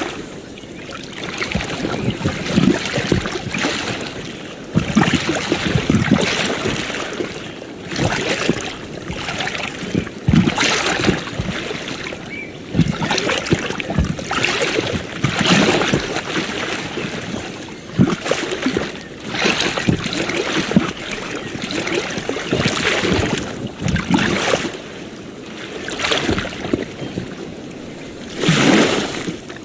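Ocean waves washing onto a shore, the surf swelling and falling away in irregular surges every second or two.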